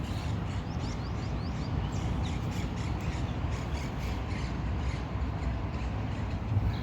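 Birds calling in a garden, many short high chirps several times a second, over a steady low rumble.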